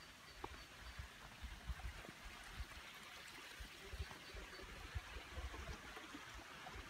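Steady hiss of a flowing stream, with irregular low thumps from footsteps on paving and from the phone being handled while walking.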